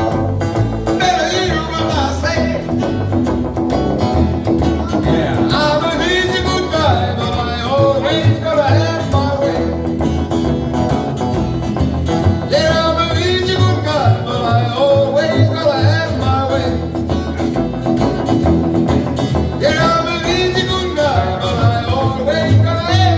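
A band playing a country-flavoured song, with singing over guitar and a steady bass beat.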